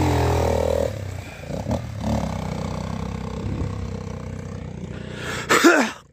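Dirt bike engine running close by, steady. A brief loud burst near the end.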